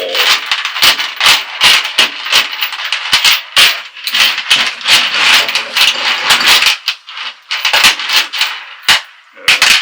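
Small metal parts rattling and clattering together in dense, continuous bursts, thinning out to a few separate clicks and clinks near the end.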